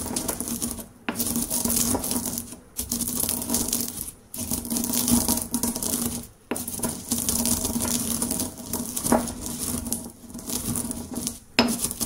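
Stone pestle crushing whole roasted coffee beans in a stone mortar: continuous gritty crunching and scraping of stone on beans, broken by several brief pauses.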